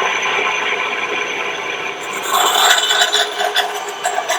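Ryobi 9-inch bandsaw running with a new Bosch 1/4-inch, 6-teeth-per-inch blade, cutting through a small piece of wood as a test of the new blade. About two seconds in the cut grows rougher and brighter, a rasping grate over the steady hum of the saw.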